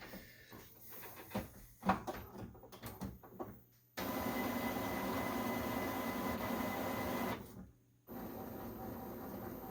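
Epson WorkForce WF-7720 inkjet printer going through its start-up after power-on: irregular clicks and knocks from its mechanism for about four seconds, then a steady motor hum that stops briefly about eight seconds in and returns quieter.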